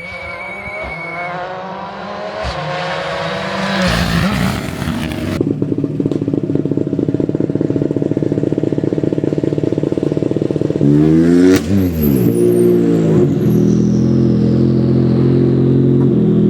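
Rally car's turbocharged engine revving hard: the pitch climbs for a few seconds, then the engine holds at a steady high rev with a fast stutter. Near the end the revs drop sharply and climb back, then hold steady again.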